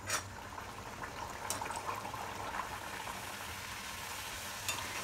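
A maida-dough puri deep-frying in hot oil in a steel pan: a steady sizzle of bubbling oil, with a few light clicks.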